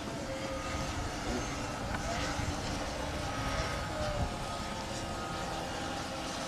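Radio-controlled model airplanes flying, with the steady drone of their motors and propellers. A thin tone drifts slightly in pitch as the planes pass.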